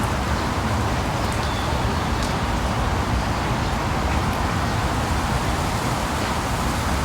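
Loud, steady rushing noise with a deep rumble underneath, unchanging throughout.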